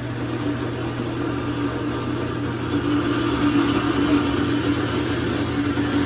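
Electric water pump running with a steady hum, pumping water into the line as the hot water tank fills; it grows a little louder about three seconds in.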